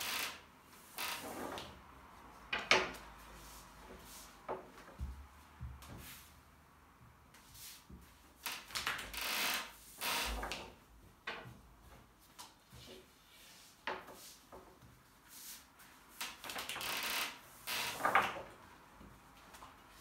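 Long thin wooden rolling pin (oklava) rolling out yufka dough on a glass tabletop: repeated irregular rolling and rubbing strokes, with a few sharp knocks of wood against glass.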